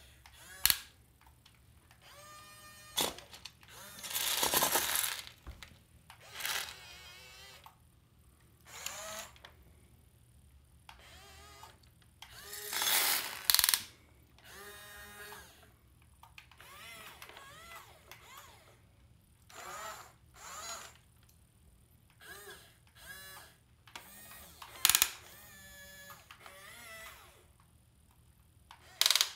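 Electric gear motors of a Double E RC toy excavator whining in short bursts, the pitch sliding as the boom, arm and bucket move. There are sharp clicks now and then, and two louder rattling bursts as the bucket scoops and drops dried beans.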